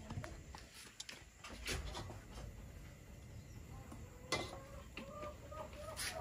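A chicken clucking in a run of short calls in the second half, with a few light clinks of a metal spatula against a wok.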